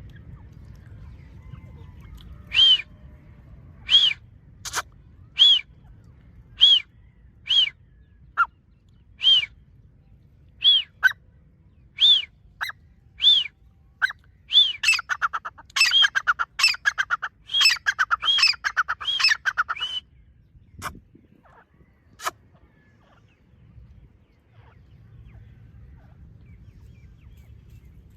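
Grey francolin (Dakhni teetar) calling: loud single notes about one every second and a half, breaking into a fast run of rapidly repeated notes for about five seconds before stopping. A couple of sharp clicks follow.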